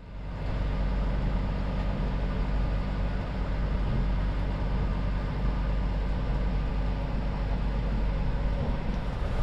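A sailboat's inboard auxiliary engine running steadily under way, a continuous low, even drone that fades in at the start.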